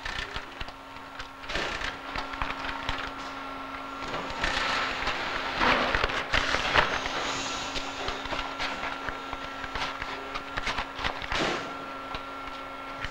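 Cardboard boxes being handled and stacked by hand, giving scattered knocks and scrapes, with a denser rasping stretch in the middle. A steady hum of factory machinery runs underneath.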